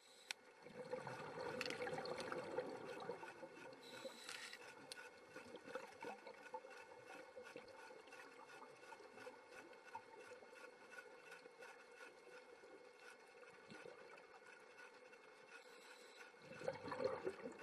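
Faint underwater ambience: a low watery rush over a steady faint hum, swelling louder about a second in and again near the end.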